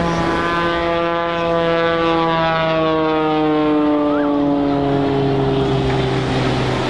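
Extra 330SC aerobatic plane's engine and propeller droning through a steep dive and pull-out, the pitch sliding gradually lower throughout.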